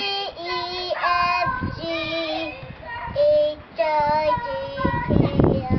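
A toddler singing in short phrases of held notes, with brief breaks between them; a burst of rough noise near the end.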